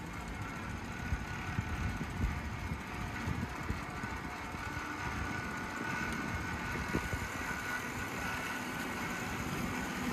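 A noisy bicycle being ridden over wet city pavement: a steady rolling rumble with irregular rattles and knocks from the bike.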